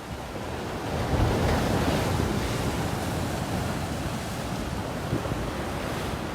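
Sea waves washing on the shore, swelling about a second in, with wind buffeting the microphone.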